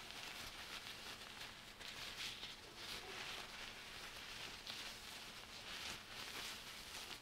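Thin nitrile glove crinkling and rustling in soft, irregular rustles as fingers pull and untangle the crumpled glove.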